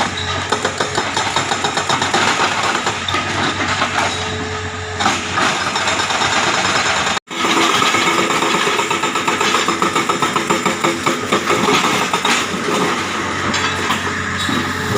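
Hitachi excavator's engine running under load while its hydraulic rock breaker hammers rapidly, with fast repeated metallic blows over the engine drone. The sound cuts out for an instant about halfway through.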